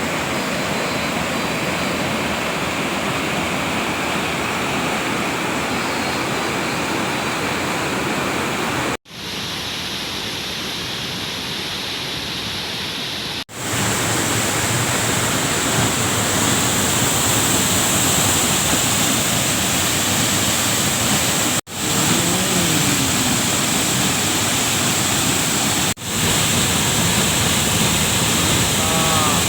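Waterfall rushing, a loud steady roar of falling water, heard in several spliced takes that cut off and restart abruptly about four times.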